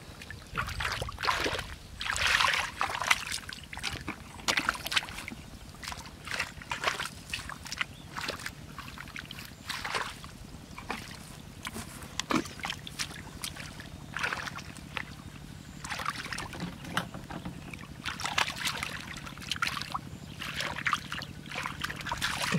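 Hands and bare feet splashing and sloshing in shallow muddy water while groping through the mud, a run of irregular splashes, the busiest about two seconds in and again near the end.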